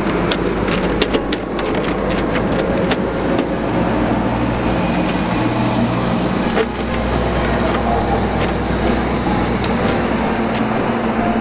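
Steady low rumble of a vehicle engine running, with scattered light clicks and taps.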